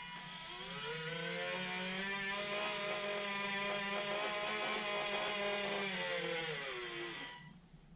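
Small electric motors and linear servos of a Hobby Engine RC excavator whining as the boom lifts a loaded bucket over to the truck. The whine rises in pitch as it gets going, holds steady for several seconds, then drops in pitch and stops shortly before the end.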